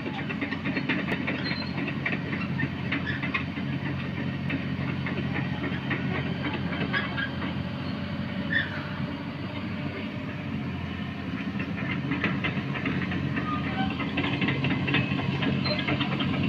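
Caterpillar 312 hydraulic excavator's diesel engine running steadily, with irregular ticking and rattling over the engine note.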